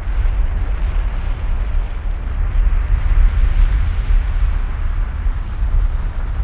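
Continuous deep rumble of the Kilauea lava fountain eruption, heaviest in the low bass and rising and falling unevenly.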